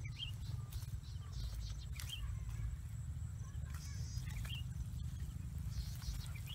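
A bird chirping: a short high call repeating about every two seconds, with a brief fluttering trill near the middle, over a steady low rumble and a few faint clicks.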